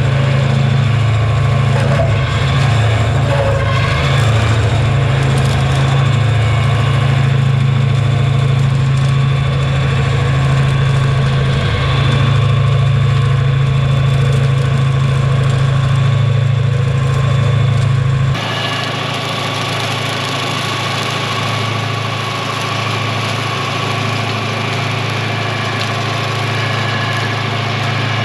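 TYM 754 tractor and its front-mounted LaneShark hydraulic brush cutter running steadily while mowing through dry brush: a continuous low engine drone. About two-thirds of the way through, the sound changes abruptly, losing its deepest part and turning slightly quieter.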